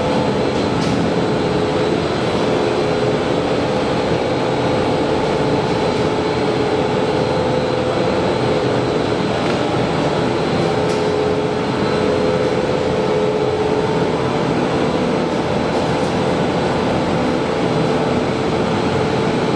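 Nonwoven needle-punching production line running: a steady, loud machine din with a constant hum.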